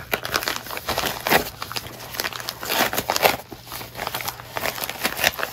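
Plastic poly mailer being handled and slit open with a knife against a paper envelope: a continuous run of irregular rustles and scrapes.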